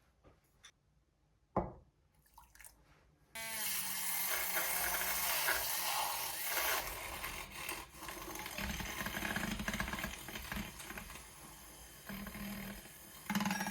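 A single knock, then about three seconds in a kitchen tap is turned on and water runs into the sink, splashing unevenly.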